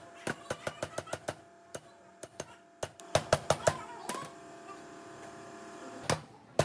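Sharp taps and knocks of metal and hard plastic parts being fitted together on a steel shaft: a quick run of about six taps in the first second, a louder cluster about three seconds in, and a single knock near the end.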